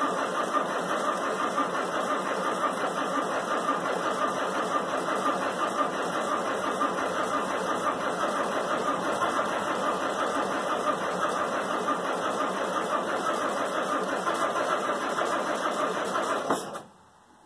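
Starter motor cranking the wheel loader's cold diesel engine over steadily without it catching, then cutting off suddenly near the end. A cold start in freezing weather without the block heater plugged in.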